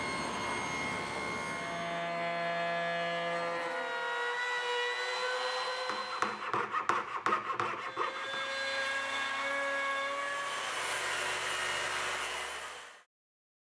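Woodworking power tools running and cutting wood in short edited clips (a table saw, a router and a track-guided circular saw), their motor whines changing pitch at each cut. Around the middle there is a burst of rapid sharp knocks and clatter, and the sound cuts off abruptly near the end.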